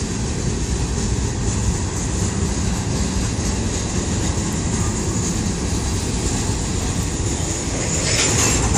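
Freight cars of a CSX train rolling past: a steady rumble of steel wheels on the rails. About eight seconds in it gets louder, with more rattle and clatter.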